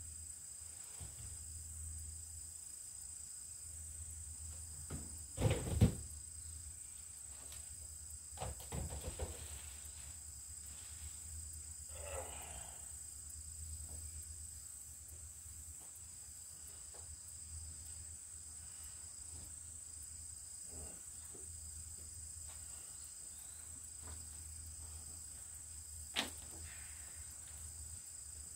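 Insects trilling in a steady high-pitched chorus, with a few knocks and clunks over it: the loudest a double clunk about five to six seconds in, a cluster of knocks a few seconds later, and one sharp click near the end.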